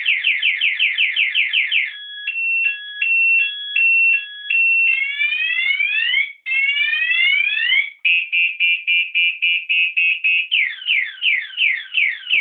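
Electronic scooter alarm siren sounding loudly and cycling through its tones. It plays fast falling chirps, then a stepped two-pitch tone, then rising whoops, then a rapid warble, and then falling sweeps.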